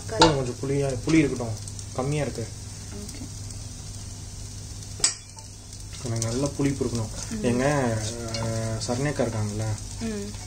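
A slotted spatula stirring and scraping rice around a non-stick wok as it fries, with sharp knocks of the spatula on the pan right at the start and about five seconds in. A voice is heard in the background during the first two seconds and again from about six seconds.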